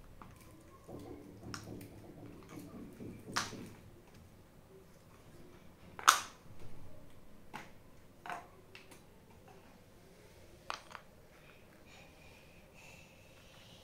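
Scattered sharp clicks and knocks of wooden peg-puzzle pieces being picked up and set down on a laminate floor and a wooden puzzle board, about half a dozen, the loudest about six seconds in.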